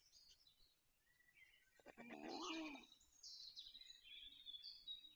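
Faint songbird song from the surrounding forest: high chirps and trills throughout. Just after two seconds in, a few clicks are followed by a louder, lower call lasting under a second.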